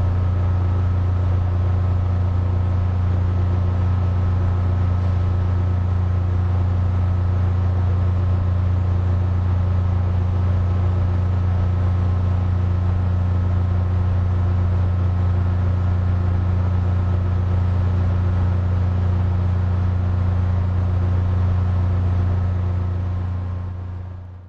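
Air conditioner running: a steady low hum with a few fainter steady tones above it and an even fan hiss, fading out over the last two seconds.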